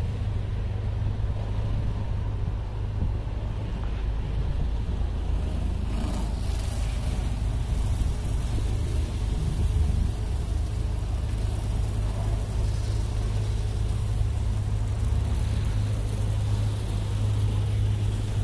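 Truck engine running steadily at low speed, heard from inside the cab, with water spray from a truck wash hissing against the body from about six seconds in.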